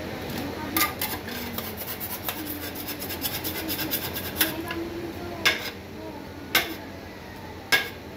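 Metal spatula scraping and smoothing rolled ice cream mix across a frozen stainless-steel cold plate, with quick rasping strokes. In the second half come four sharp, louder scrapes about a second apart.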